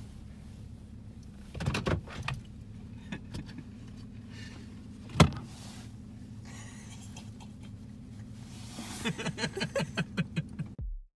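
Pickup truck engine idling, heard from inside the cab, with a few bumps early on and one sharp click about five seconds in. Near the end comes a quick run of rhythmic pulses, about five or six a second, before the sound cuts off abruptly.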